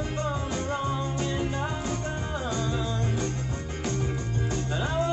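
A rock song with singing, a steady bass line and drum beats, played back over a home hi-fi system's loudspeakers.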